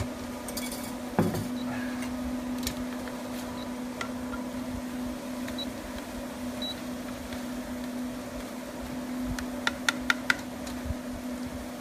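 Butter sauce being passed through a metal sieve into a steel pot: a knock about a second in, then four quick metal clinks near the end as the spoon taps the sieve, over a steady low hum.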